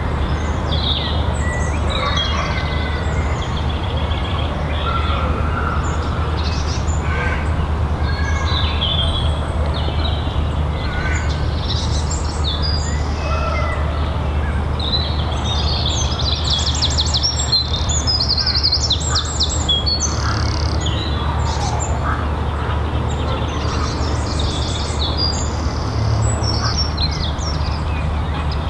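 Small songbirds chirping and singing, with short high calls throughout and a busy run of rapid trills about halfway through, over a steady low background rumble.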